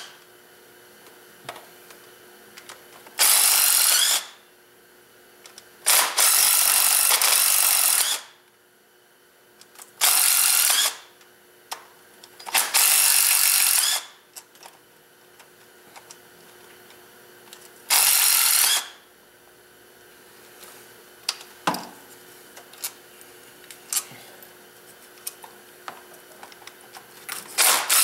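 Cordless power tool with a socket extension spinning engine bolts in short runs of one to two seconds, six times, with small clicks of hand work between the runs.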